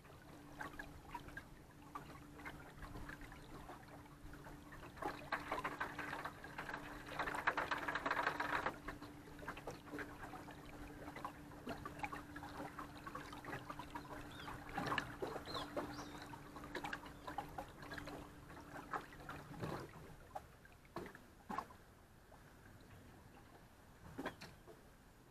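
Steady low electric hum of a bass boat's trolling motor that cuts off near the end, with water lapping and splashing at the hull, loudest a few seconds in, and scattered small clicks and knocks on deck.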